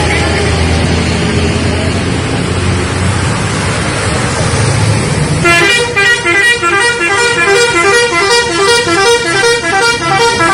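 A vehicle engine rumbles for about five seconds. Then a bus's multi-tone 'telolet' horn starts up, playing a fast, repeating melody of alternating notes that stops near the end.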